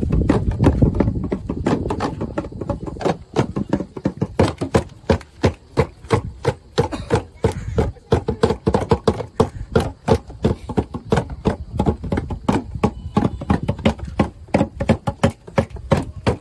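Hand drums beaten in a fast, steady rhythm of sharp knocks accompanying a traditional Papuan dance, with voices now and then.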